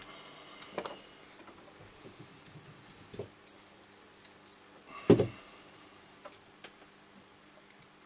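Scattered small clicks and taps from handling a milk frother's circuit board and soldering tools, with one louder knock about five seconds in.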